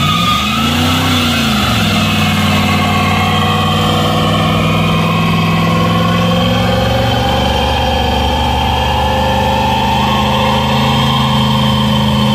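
Burnout: an early-1960s Chevy II's engine revs up and drops back once in the first two seconds, then is held at steady high revs while the rear tyres spin on the pavement.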